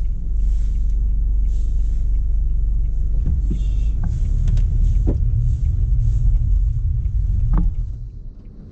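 Low, steady rumble of engine and road noise inside the cabin of a moving Toyota HiAce van, easing off shortly before the end.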